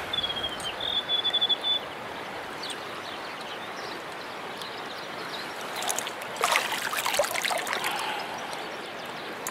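Stream water running steadily, with a short high pulsed trill in the first two seconds and a spell of splashing in the water from about six to eight and a half seconds in.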